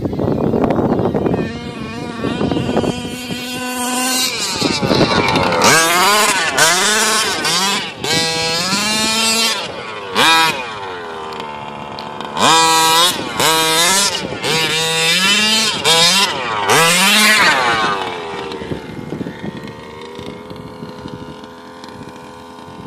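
Full-mod 30.5cc two-stroke engine of a 1/5-scale HPI Baja 5SC RC truck, revving hard in repeated bursts of throttle, its pitch climbing and dropping again and again. It gets quieter near the end as the truck drives away.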